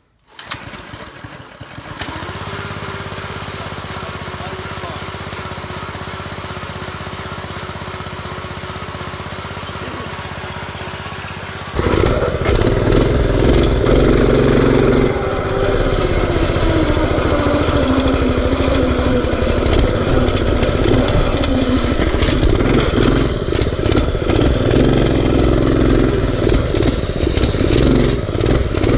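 Predator 212 single-cylinder four-stroke engine on a mini bike, running steadily for about ten seconds. About twelve seconds in it becomes much louder and stays loud, with the engine speed rising and falling as the throttle is worked.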